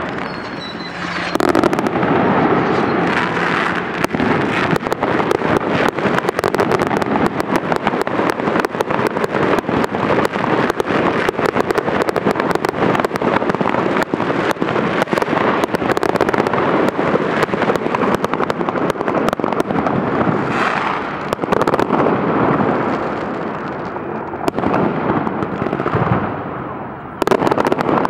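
Festive fireworks salute: a dense, continuous barrage of bangs and crackling, with a brief lull near the end broken by a loud burst.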